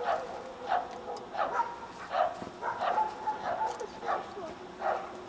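Dog barking in a steady series, about eight barks a little under a second apart.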